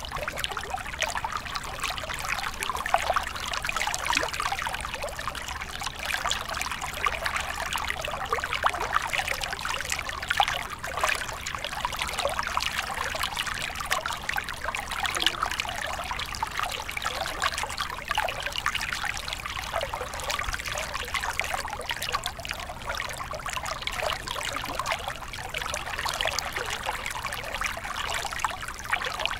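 Aquarium water trickling and splashing steadily, over a low steady hum.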